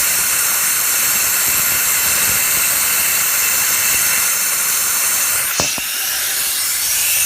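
Compressed shop air hissing steadily during a cylinder air-leak test on a diesel engine with the valve cover off, the air escaping past an injector seal, which the mechanic suspects is a leaking injector cup or top injector O-ring. A sharp click comes about five and a half seconds in, and the hiss drops briefly before it resumes.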